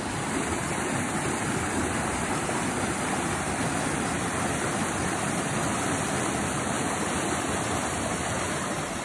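Waterfall rushing: a steady, dense wash of falling water.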